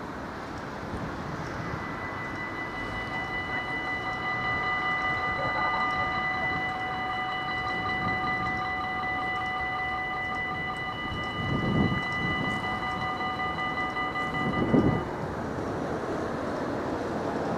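Level-crossing warning bells ringing steadily, starting a couple of seconds in and stopping about fifteen seconds in, as the barriers come down. Under them a steady wind rumble on the microphone, with two short louder bumps near the end.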